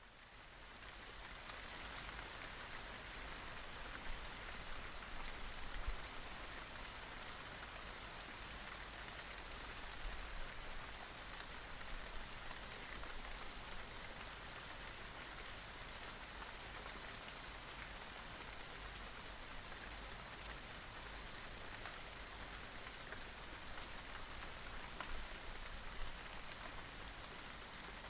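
Light rain falling steadily, with scattered individual drops ticking louder here and there. It fades in over the first couple of seconds.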